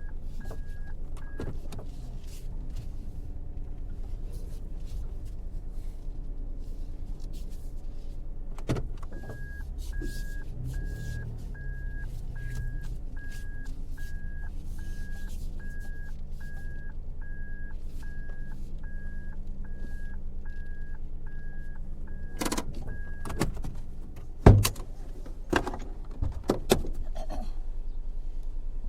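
Car engine running steadily, heard from inside the cabin, with a dashboard indicator tone pulsing a little more than once a second for much of the time. Near the end come several sharp knocks and clunks from the car's controls.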